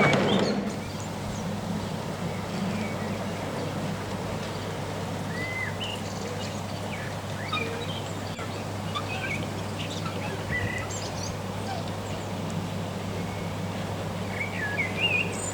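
Birds chirping in short, scattered calls over a steady low hum, with a brief flurry of calls near the end.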